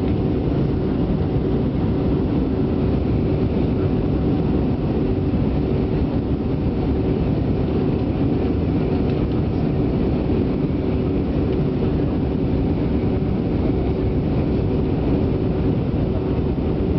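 Steady cabin noise of an Airbus A318 airliner descending toward landing: engine and airflow noise heard from a window seat, with a faint steady hum running through it.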